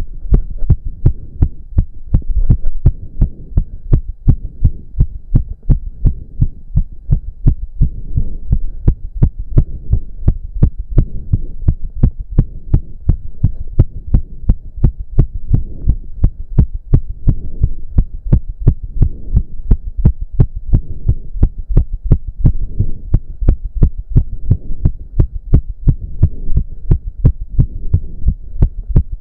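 A man's heart pounding very fast from intense cardio exercise, in rapid, even beats, the racing rhythm of a heart pushed close to 200 beats a minute. Heavy breathing swells and fades under the beats.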